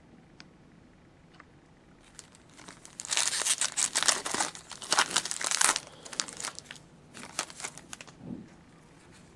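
Foil wrapper of a hockey trading card pack being torn open and crinkled, starting about two seconds in, loudest in the middle, with more crinkling near the end.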